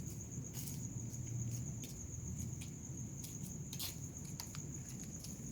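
Crickets trilling in one steady high-pitched tone, with scattered light clicks and rustles.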